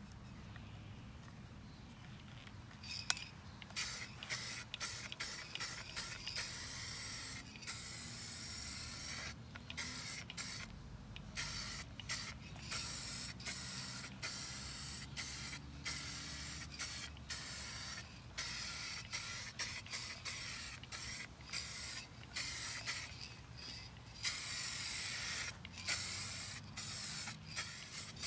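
Paint spraying onto a wheel rim in many short hissing bursts, starting about three seconds in, with a couple of longer passes among them.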